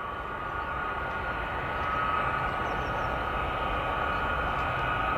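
Boeing C-17 Globemaster III's four turbofan engines whining steadily at taxi power over a low rumble, growing slowly louder.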